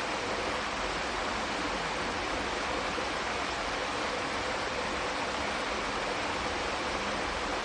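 Flowing water rushing steadily, an even hiss with no drips, splashes or changes.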